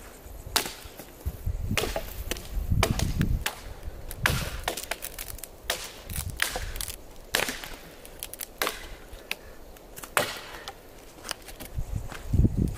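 Fallen wood being broken up by hand into pieces: a series of sharp cracks and knocks at irregular intervals, some with a duller thud.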